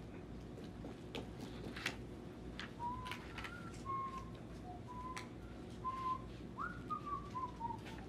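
A person whistling a tune: a string of short held notes starting about three seconds in, ending with a few notes stepping downward. Light clicks of a marker writing on a whiteboard are heard underneath.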